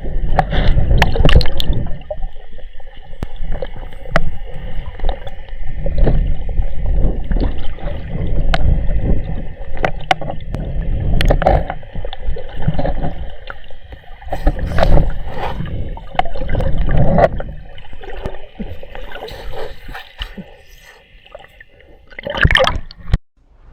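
Water gurgling and sloshing close around a camera at or just under the surface during a river swim, with irregular knocks and splashes; it cuts off suddenly near the end.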